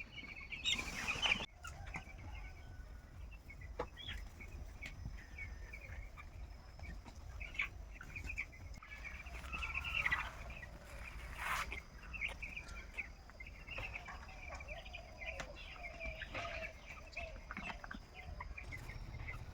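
A flock of broiler chickens cheeping and clucking, many short calls overlapping throughout. A brief loud noise about a second in.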